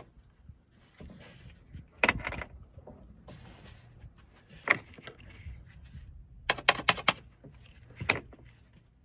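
Scattered clicks and knocks of hands handling a plastic oil bottle and funnel, with a quick run of several clicks about two-thirds of the way through.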